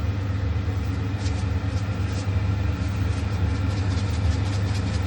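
A steady low machine hum with a faint, fine crackling above it.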